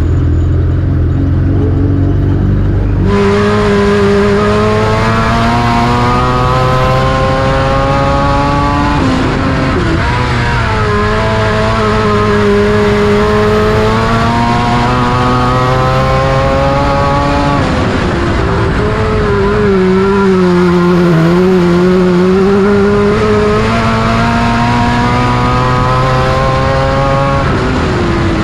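Race car engine running hard on the track, its pitch climbing along each straight and falling back into the turns, again and again. It jumps much louder about three seconds in.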